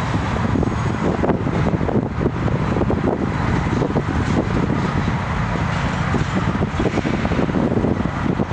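Double-stack intermodal freight train rolling slowly through a rail yard with a steady rumble, wind buffeting the microphone.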